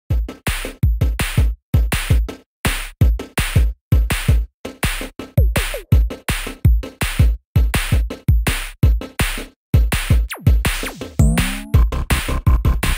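Electronic background music built on a drum-machine beat: a quick run of punchy hits with deep bass, several a second, with a few sliding tones near the end.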